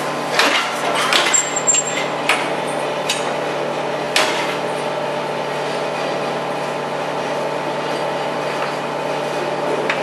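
Several sharp metallic knocks and clanks in the first four seconds or so, from a cow held in a steel headlock gate while an ID collar is buckled around her neck. A steady hum of barn machinery runs underneath.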